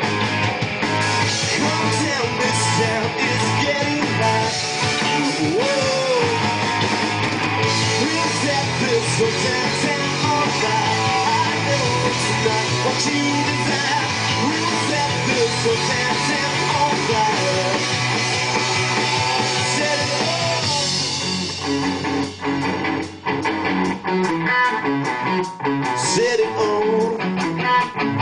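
Live indie rock band playing an instrumental stretch at full volume: electric guitars, bass and drums. About two-thirds of the way through the full sound drops back to a sparser, choppy guitar-led part with sharp accents.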